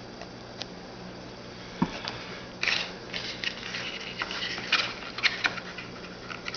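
Trading cards being handled between reveals: scattered light rustles and clicks, starting about two seconds in, over a steady low hum.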